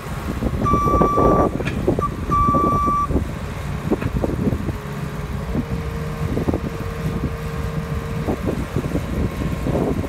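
JCB 260 skid steer loader's diesel engine running under load as its defacer attachment works into a silage face. About a second in, a reversing alarm sounds two steady beeps. A steady whine joins in the middle and cuts off near the end.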